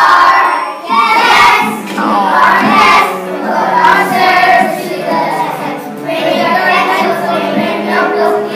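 A class of young children singing together as a group, over instrumental music.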